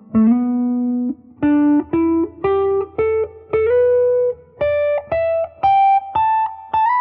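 Guitar playing a pentatonic scale as single picked notes, climbing in pitch note by note up the neck, with short slides between some notes. The last high note rings out and fades.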